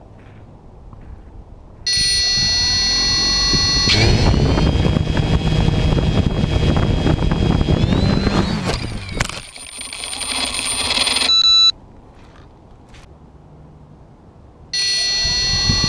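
Drone's electric motors and propellers spinning up while it sits on the ground: a high steady whine comes in about two seconds in, and its pitch climbs as the props speed up. It dips briefly and climbs again before cutting off suddenly, then starts up once more near the end.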